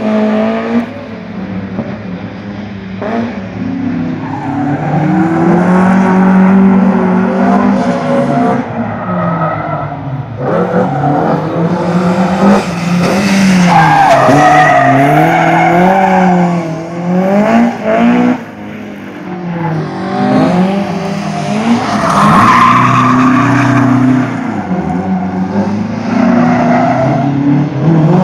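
BMW E30 M3's four-cylinder engine revving up and down over and over as the car is driven hard through a tight course, with tyres squealing in the slides. The squeal is loudest around the middle and again about three-quarters through.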